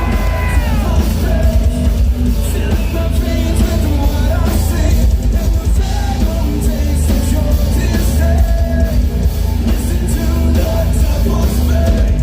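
Metal band playing loud live, with distorted guitars, a pounding drum kit and heavy bass under a singing voice.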